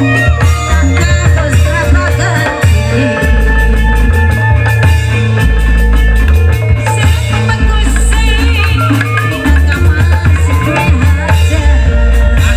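Loud Reog Indramayu ensemble music: drums and deep bass notes that change every second or so, under a wavering melody line.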